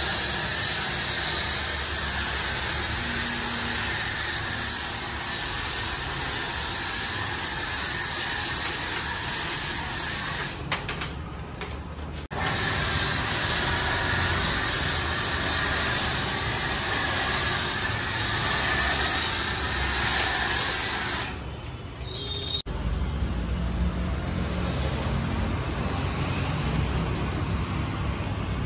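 High-pressure spray of snow foam onto a car's bodywork, a steady hiss that breaks off briefly about ten seconds in and stops a little after twenty seconds. After that, a lower, quieter steady hum remains.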